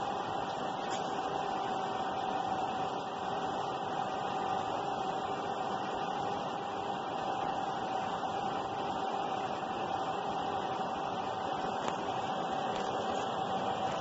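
Heat shrink tunnel machine running: its fans and mesh conveyor give a steady whir with a constant tone running through it.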